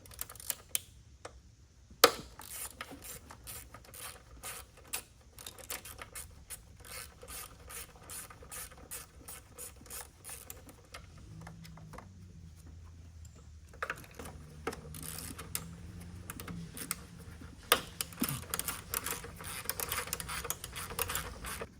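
Hand ratchet clicking in long runs of quick, even strokes as bolts are worked on the engine, with a sharp metallic knock about two seconds in.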